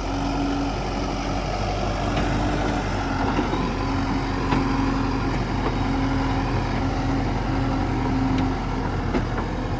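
Heavy diesel engine of a tractor or backhoe loader running steadily.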